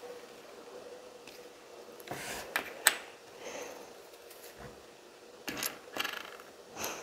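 LEGO plastic pieces being handled and pressed together: irregular small plastic clicks and rattles, the sharpest snap just before three seconds in, more clusters near the end.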